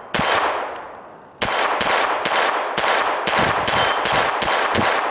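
Smith & Wesson M&P 22 pistol firing .22 LR rounds: one shot, then after a pause a quick string of about nine more, roughly two a second. Each shot is followed by the high ring of a small steel plate being hit.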